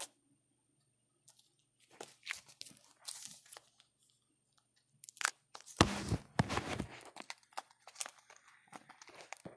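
Packaging on a boxed card deck being torn and crinkled open in irregular crackling bursts, starting about two seconds in and getting louder and busier about six seconds in.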